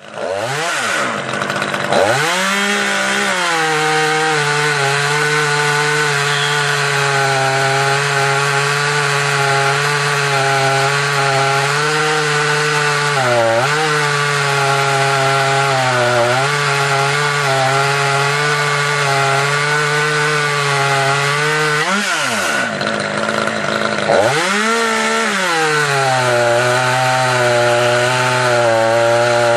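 Husqvarna T540 top-handle chainsaw running at high revs while cutting through a log. Its pitch wavers under load and sags and recovers a few times, the deepest dip a little past the middle.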